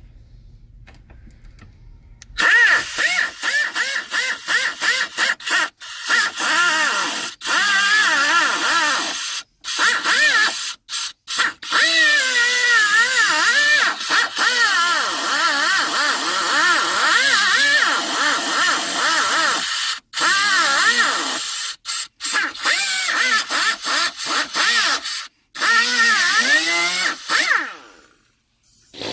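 Power grinder cutting into a plastic truck dash. The motor's pitch wavers up and down as it bites and loads, and the sound breaks off abruptly several times.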